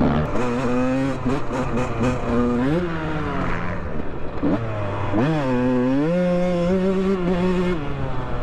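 Dirt bike engine revving hard and shifting, its pitch climbing and falling several times, then held high and steady for a couple of seconds before dropping off near the end.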